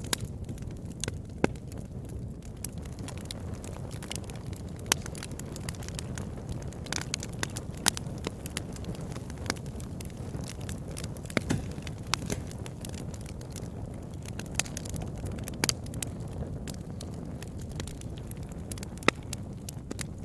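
Campfire burning with a steady low rumble and irregular sharp crackles and pops, a few louder snaps among many small ones.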